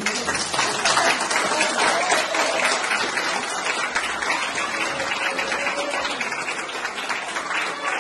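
Audience applause, breaking out suddenly at the end of a piece of music and easing slightly toward the end.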